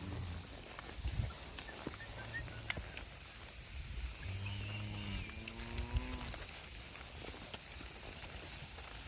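A heifer moos once about halfway through, a low call of roughly two seconds that drops in pitch at the end, over a steady low hum, with a few short knocks.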